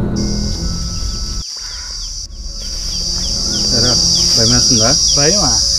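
Steady high-pitched insect chirring with small repeated chirps beneath it, the sound of a forest in daytime. A low music bed fades out about a second and a half in, and a man's voice comes in near the end.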